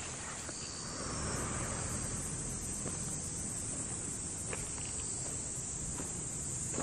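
A dense, steady, high-pitched insect chorus shrilling without a break, over a low background rumble.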